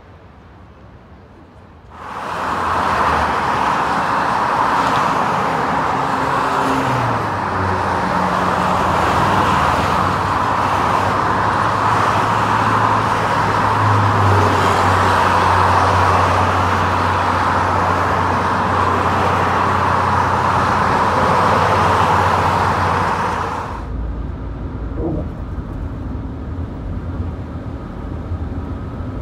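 Steady roar of fast freeway traffic, mostly tyre noise, with a low hum beneath. It cuts off sharply about three-quarters of the way through and gives way to a quieter, deeper road rumble inside a moving car.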